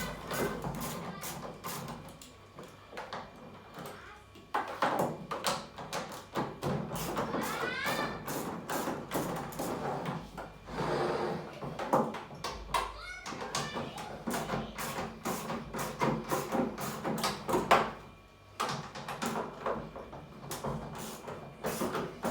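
Many rapid, irregular clicks and knocks, with a brief rising squeak about eight seconds in.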